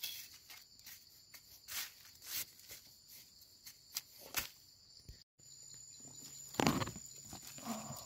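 A small hand trowel digging in forest soil and dry leaves: scattered light scrapes and ticks, with a louder rustle through the leaf litter about two-thirds of the way in. A steady high insect drone runs underneath.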